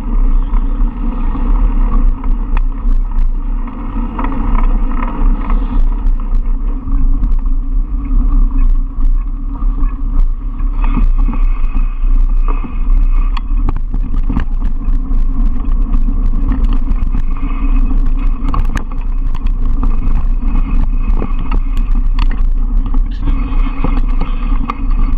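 Mountain bike rattling along a dirt forest trail, with wind rushing on the microphone and frequent sharp knocks and clatters from bumps and roots.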